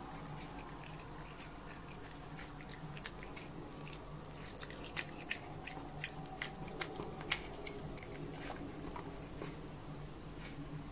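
A cat biting and chewing food close up, with crisp little crunching clicks that come thickest a third of the way through and thin out towards the end.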